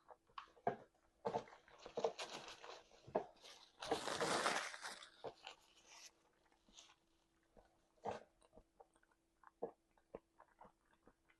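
Close-up mouth sounds of eating: chewing, crunching and lip smacks, with a louder, noisy crunch about four seconds in, then scattered wet clicks.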